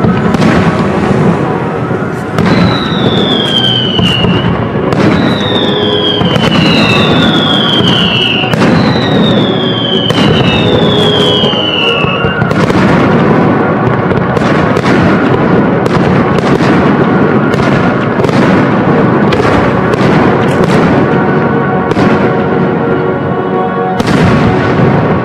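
Aerial firework shells bursting one after another, with sharp reports and crackle, and five falling whistles in the first half. Music plays alongside the fireworks.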